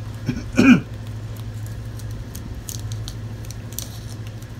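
Masking tape being handled, torn and pressed down: faint crinkles and scattered ticks over a steady low hum. Under a second in, a brief wordless vocal sound with a falling pitch is the loudest thing.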